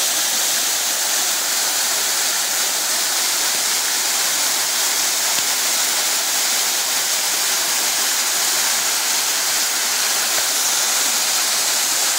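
Small waterfall spilling over stepped rock ledges into a pool: a steady, unbroken rush of water with a strong high hiss.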